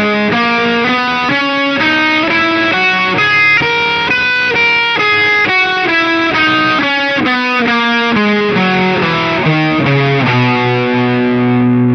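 Electric guitar with distortion playing a C major scale in the three-notes-per-string shape, single notes at a steady pace, each one distinct, climbing and then coming back down. It ends on a held low note.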